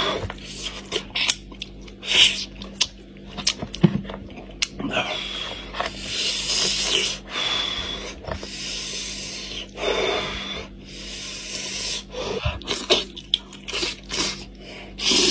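Close-miked eating sounds from a cooked goat head: meat being pulled apart by hand, with wet chewing and many short clicks and smacks, and several drawn-out sucking sounds of about a second each.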